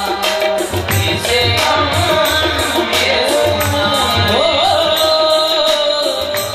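Qawwali music: sustained harmonium-like held notes under a steady hand-drum beat, with a singer's voice rising in a glide about four seconds in.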